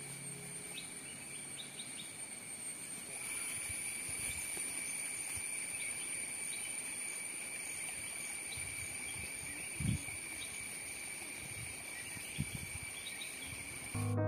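Steady high-pitched insect chirring from crickets or cicadas, at two constant pitches, with a couple of brief dull thumps about ten and twelve seconds in. A soft piano ends about two seconds in and comes back right at the end.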